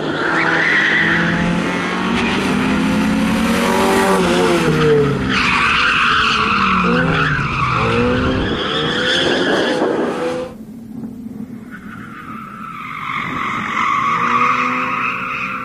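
Opel Astra GSi competition car's engine revving hard, its pitch rising and falling through gear changes and corners, with tyres squealing as it slides through the turns. About ten seconds in the sound drops suddenly to a quieter, more distant engine, and a steady high tyre squeal comes in near the end.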